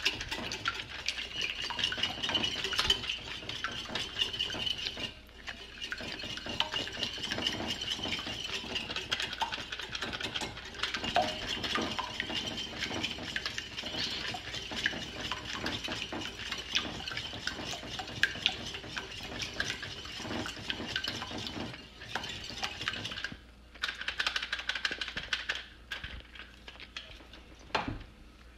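Metal fork beating eggs and milk in a ceramic bowl, a fast steady clinking and scraping against the bowl. It breaks off briefly a few times and stops in the last few seconds.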